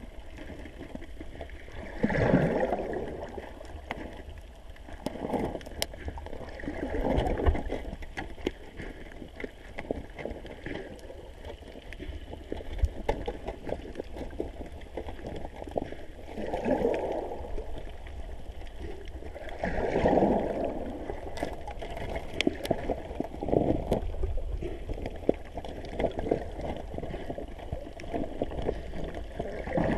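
Muffled underwater sound heard through a GoPro camera's waterproof housing: water rushing and gurgling as the camera and swimmers move, swelling in irregular surges every few seconds.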